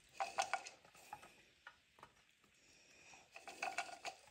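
Chopped pecan pieces rattling and clinking against a small glass bowl as it is shaken and tapped over a baking pan, in two short bursts of light clicks: one at the start and one about three and a half seconds in.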